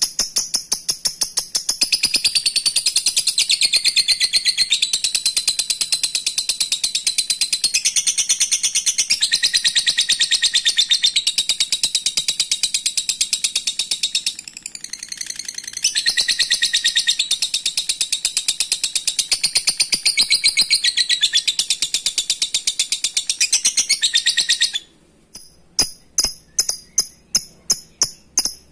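Fischer's lovebird singing its long, rapid, shrill chattering trill (ngekek). The trill falters briefly about halfway and stops about 25 seconds in. Short series of sharp ticking calls follow, about three a second.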